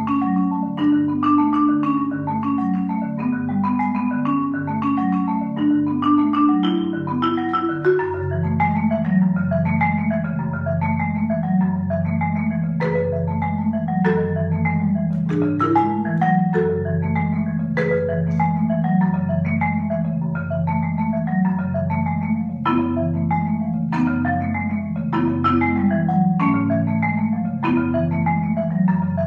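Solo concert marimba played with four mallets: a fast, unbroken stream of repeating arpeggio notes. About eight seconds in, the low bass bars come in strongly beneath the pattern, and a higher melody line stands out above it in the middle and again near the end.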